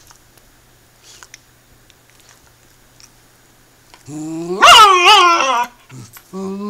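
Poodle vocalizing in play: a loud, wavering whine-yowl that rises and wobbles in pitch about four seconds in, then a shorter, steadier call near the end. The first few seconds are nearly quiet, with a few faint soft taps.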